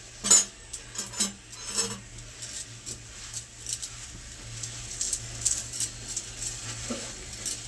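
Scattered light clinks and taps of kitchen utensils and dishes while rotis are being made, the sharpest just after the start, over a steady low hum.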